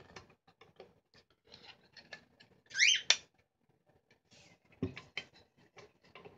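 Orange plastic canister stand being worked and snapped onto a metal butane/propane gas canister: scattered small clicks and scrapes of plastic against the can, with a short rising squeak about three seconds in, ending in a sharp click, and a few knocks near the end.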